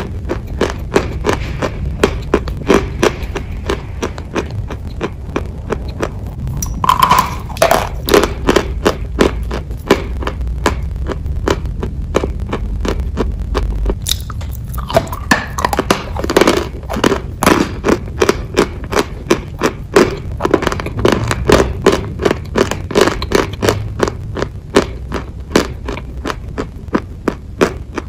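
Close-miked crunching and chewing of a chunk of white chalk: a bite snaps off a piece about 7 seconds in and again around 15 seconds, each followed by a fast run of crisp crunches as it is chewed. A low steady rumble sits underneath.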